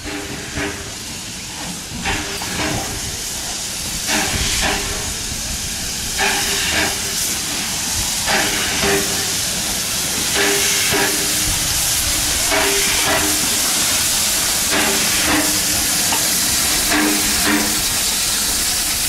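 The steam-driven Westinghouse air-brake pump on a USATC S160 steam locomotive huffing away, in paired beats about every two seconds, over a steady steam hiss.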